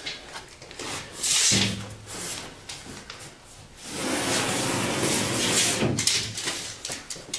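Steel tape measure being pulled out and slid along a sheet of drywall. There is a short rub about a second in and a longer sliding rub from about four to six seconds.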